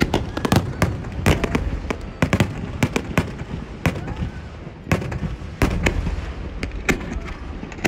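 Aerial fireworks display: shells bursting in quick, irregular succession, a dense run of sharp bangs over a continuous low rumble.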